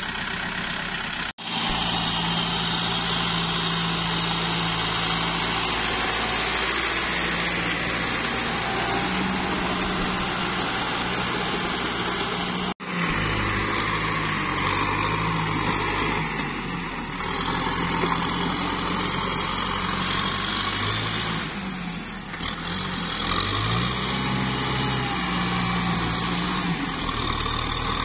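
Kubota tractor's diesel engine running under load as it churns through deep mud and water, its pitch rising and falling several times. The sound cuts out abruptly twice, briefly.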